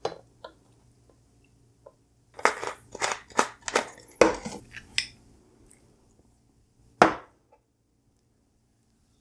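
A plastic vinegar bottle and a small glass handled on a kitchen counter: a few light clicks, a run of knocks and clatters between about two and a half and five seconds in, and one sharp knock about seven seconds in.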